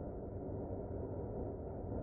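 Steady low rumble of noise with no music or voice.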